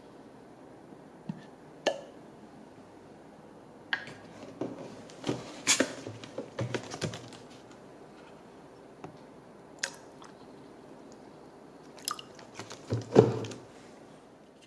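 Scattered light clicks and knocks of a Fellow Stagg EKG kettle's lid being pressed and lifted off and things being handled and set down, with a louder clatter near the end.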